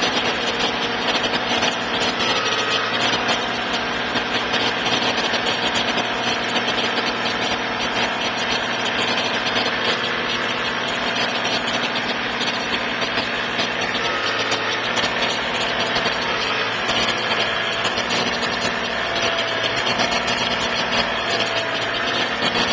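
Tractor engine running steadily, close to the microphone.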